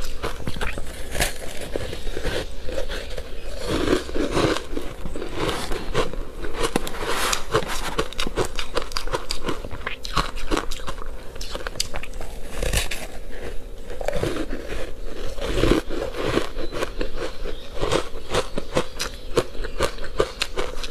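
Biting and chewing a block of powdery ice coated in matcha powder: a dense run of crisp crunches and crackles close to the mouth, with heavier bites every few seconds.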